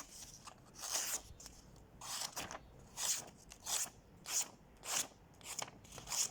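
Blade of a Benchmade Bailout–clone folding knife cutting in quick repeated strokes: about ten short scraping swishes, roughly one every two-thirds of a second, showing how sharp the blade comes.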